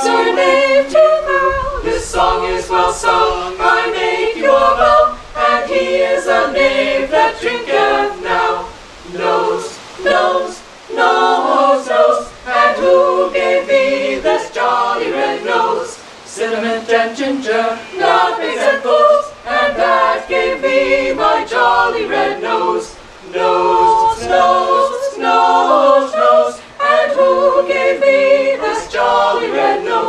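Small mixed ensemble of women's and men's voices singing a capella in part harmony, in phrases with brief pauses for breath.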